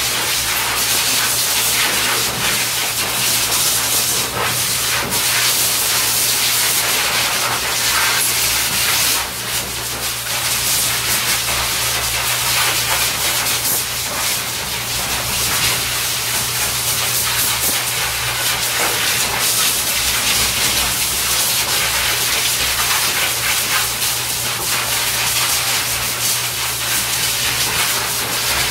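Hose-type pet grooming dryer blowing a steady, loud rush of air while blow-drying a puppy's coat, with a low steady motor hum underneath.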